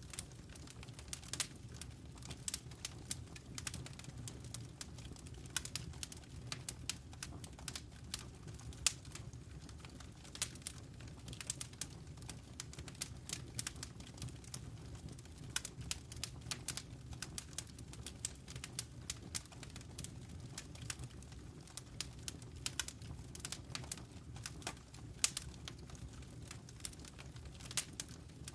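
Wood fire burning in a fireplace: irregular sharp crackles and pops, often several a second, over a steady low rumble of the flames.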